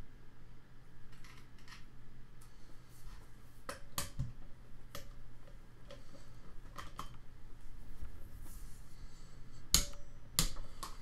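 Scattered light clicks and clinks of hand tools being handled on a bench. Near the end come two sharp, louder metallic clicks about half a second apart as a torque wrench is worked on the exhaust cam adjuster bolt of the Audi 2.0T cylinder head.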